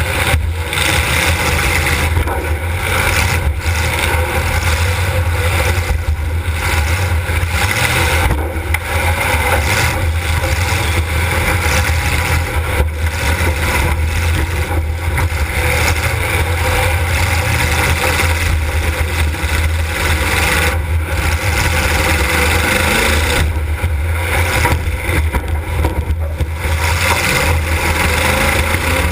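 Demolition derby car's engine running hard, heard loud from a camera riding on board, steady with a few brief dips.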